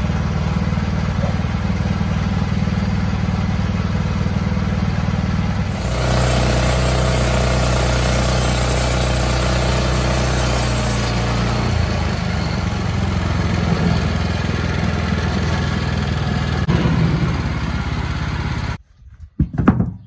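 Wood-Mizer LX25 portable band sawmill running, its band blade sawing a siding board off a squared log from about six seconds in, which adds a louder rasping cut over the engine. The sound stops abruptly near the end, followed by a couple of knocks.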